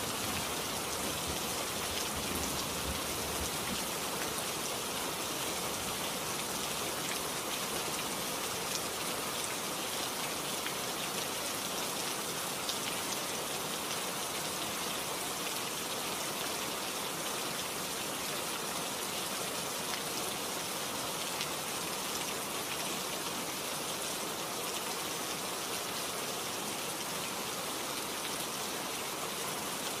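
Heavy rain falling steadily, an even hiss of drops with no break.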